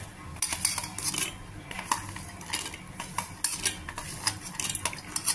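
Dry-roasted peanuts and spice seeds tipped and spooned off a steel plate into a steel grinder jar: irregular rattling, clinks and scrapes of metal.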